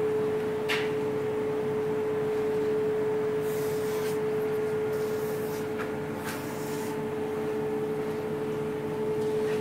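Steady single-tone machine hum, with brief rubbing swishes as a hand slides across the platesetter's plate table, about three and a half seconds in and again around six seconds.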